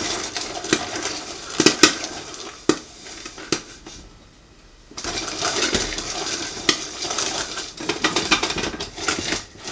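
Whirley-Pop stovetop popcorn popper being hand-cranked: the metal stirring arm and gears rattle and scrape in the pot with popped corn tumbling inside, with scattered sharp clicks and knocks. The clatter stops for about a second midway, then resumes.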